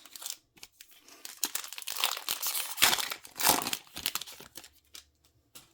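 Crinkling and tearing of a trading card pack's wrapper as it is ripped open and handled, loudest in the middle, then a few small clicks as the cards come out.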